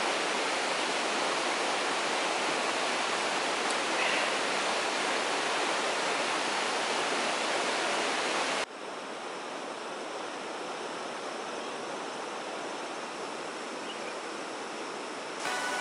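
Steady, even hiss that drops abruptly to a softer hiss about nine seconds in; the softer part goes with a pot of vegetable soup bubbling on a camp stove.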